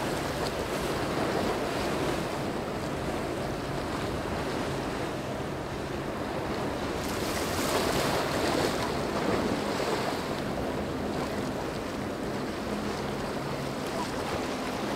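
Water rushing from a large motor yacht's bow wave and wake, mixed with wind on the microphone, over a low steady engine drone.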